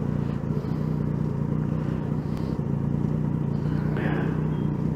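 Triumph Daytona 675R's three-cylinder engine idling steadily while the bike waits at a standstill.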